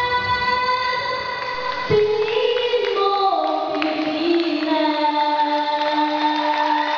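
Music with singing: a long held note, then from about two seconds in a slow melody stepping down in pitch through several long held notes.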